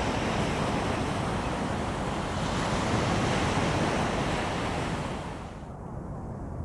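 Sea surf washing up a beach, a steady rushing noise with wind buffeting the microphone. About five seconds in, the rush drops away sharply and goes quieter.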